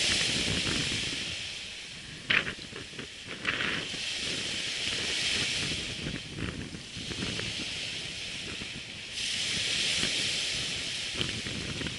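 Surf washing onto a sandy beach in slow swells, with wind buffeting the microphone. A few short clicks, the loudest a little over two seconds in.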